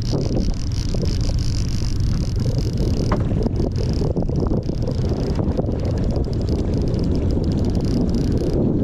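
Boat's motor running steadily under way while trolling, with wind buffeting the microphone. A steady high whine sounds over it for the first half and then fades, and there are a few light clicks.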